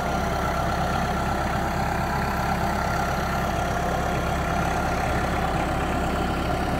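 Kubota utility tractor's diesel engine running steadily, with a faint steady whine above it, while the front loader raises a T-post pulled from the ground by a chain.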